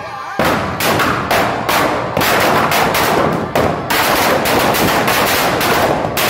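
Firecrackers packed inside a burning Ravan effigy going off: a string of sharp bangs about every half second, quickening after about two seconds into rapid, near-continuous crackling.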